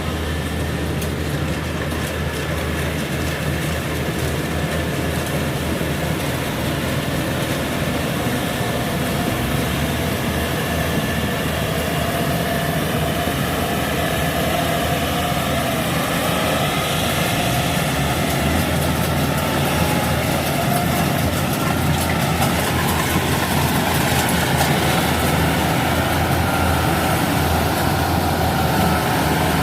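Kubota DC70 combine harvester's diesel engine running steadily, with higher whining tones from its machinery that drift slowly in pitch. The sound grows slightly louder over the stretch.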